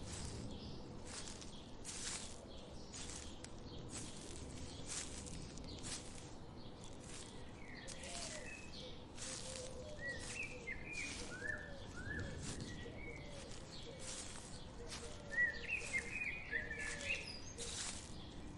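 Forest ambience: birds chirping over a steady wash of water from a babbling forest stream, with frequent short splashy hisses. The chirps come in about halfway through and grow busier and louder near the end.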